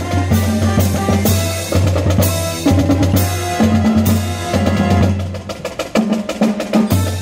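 Brass band playing with a drum kit: sharp snare, bass drum and cymbal hits over sustained low brass notes and pitched melody lines.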